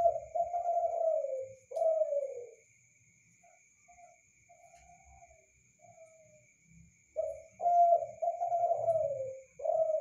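Derkuku (spotted dove) cooing: a phrase of several low notes, the later ones sliding down in pitch, near the start and a second such phrase from about seven seconds in. Soft, shorter coos come between the two phrases.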